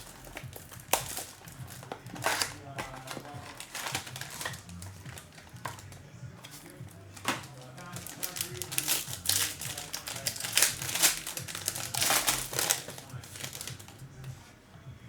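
Trading-card box packaging being opened and handled: irregular crinkling and rustling with sharp clicks, busiest in the second half.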